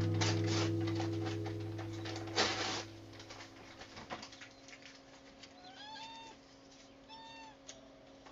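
A strummed acoustic guitar chord rings out and fades over the first three seconds. Then come two short, high kitten mews about a second apart.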